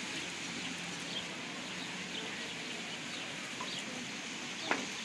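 Steady outdoor background noise with a few faint, short, high chirps scattered through it, and one brief sharp squeal about four and a half seconds in, the loudest sound.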